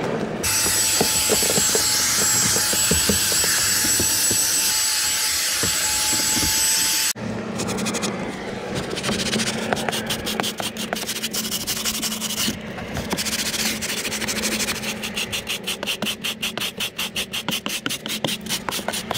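A steady whirring hiss with a thin high whine for about the first seven seconds, which cuts off suddenly. Then a hand brush scrubs the foamed carpet of a car floor in back-and-forth strokes, several a second, quicker and more even near the end.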